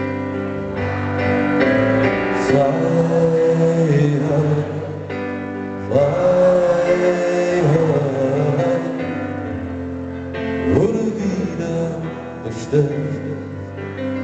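Live band music with a man singing into a microphone, holding long, wavering notes.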